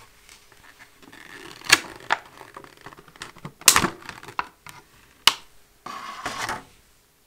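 Clear plastic packaging tray crinkling and snapping as a plastic phone holder is worked out of it. There are three sharp snaps, a second or two apart, with small ticks between them, and a short crinkling rustle near the end.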